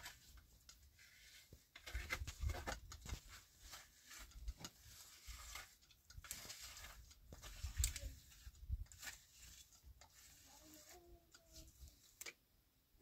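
Wet mud plaster being scraped and patted onto a mud wall with a hand trowel and bare hands: irregular, fairly faint scrapes and soft knocks.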